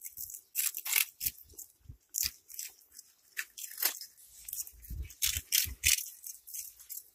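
Cats chewing crunchy round puffed snack balls: irregular, sharp crackling crunches several times a second, loudest a little past the middle.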